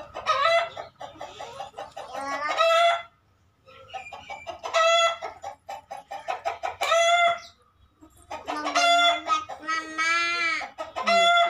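Domestic chickens calling: a rooster crowing and hens clucking in a run of loud calls with short pauses between them.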